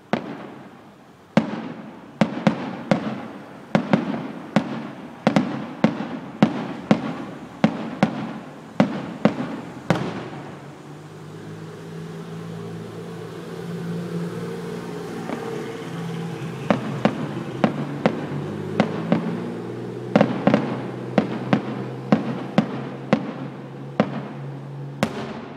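Aerial firework shells bursting in quick volleys, sharp bangs about two a second for the first ten seconds. A lull of about six seconds follows, then another volley of bangs and a last single bang near the end.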